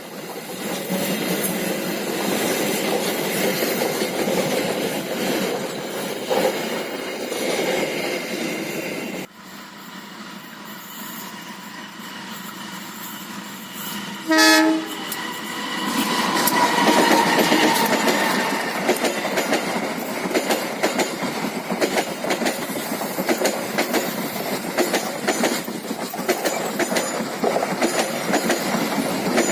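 A train rolling past until the sound cuts off abruptly about a third of the way in. A locomotive air horn then gives one short, loud blast about halfway through, and a train follows, passing steadily with wheels clacking over the rail joints.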